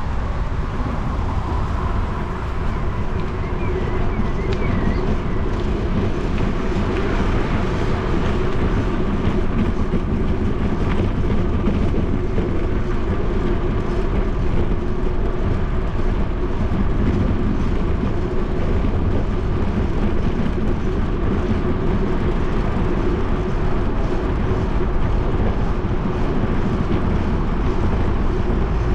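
Steady rushing noise of a bicycle ride along a paved bike path: wind on the microphone mixed with rolling tyre noise.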